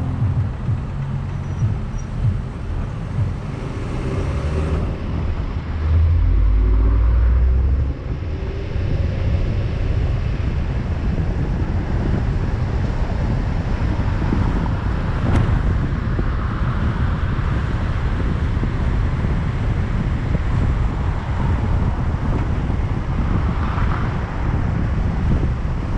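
Car pulling away and picking up speed, then cruising with steady road and wind noise. A loud low rumble comes about six seconds in and lasts about two seconds.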